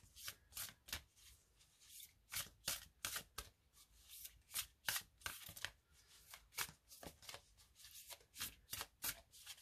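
A deck of Postcards from Spirit oracle cards being shuffled by hand, a faint run of short, soft strokes, about three a second.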